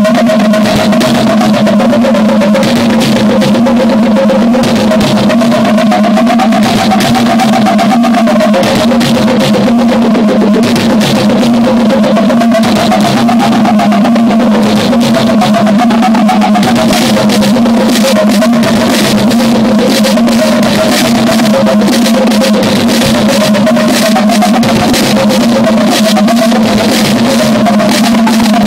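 Loud live electronic music from a Roland MC-909 groovebox setup: rapid, dense drum-machine hits over a steady low drone, with a wavering mid-pitched synth line above it.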